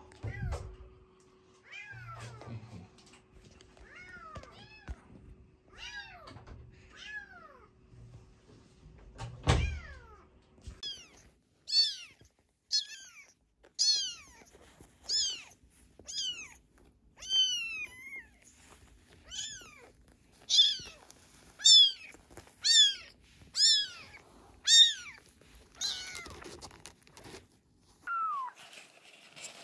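A tiny kitten mewing over and over, high calls that each fall in pitch: fainter at first, then loud and about one a second in the middle stretch. A single dull thump comes about ten seconds in.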